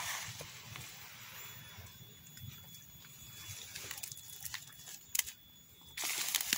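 Rustling of dry pine needles, twigs and leaves as a person picks wild mushrooms from the forest litter and pushes through undergrowth, with a few sharp twig snaps or clicks about five seconds in and a louder rustle near the end.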